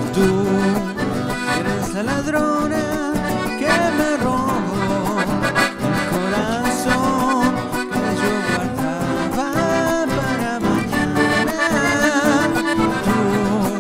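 Cumbia paisana played live on accordion and two strummed acoustic guitars, the accordion carrying the melody over a steady dance rhythm.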